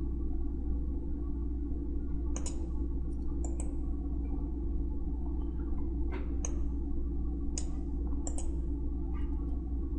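Computer mouse clicking, about ten scattered short clicks, some in quick pairs, over a steady low hum.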